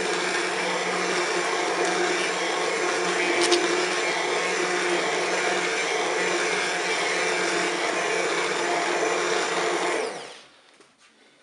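Immersion blender running steadily as it purées carrot and potato soup in the pot, then switched off about ten seconds in.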